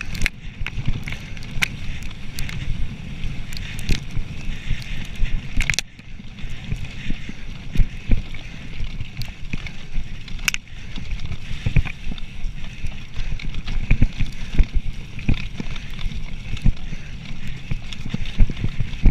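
Mountain bike ridden fast over a bumpy forest dirt trail: wind rumbles on the microphone, the tyres rush over the ground, and the bike rattles with frequent sharp knocks and clicks.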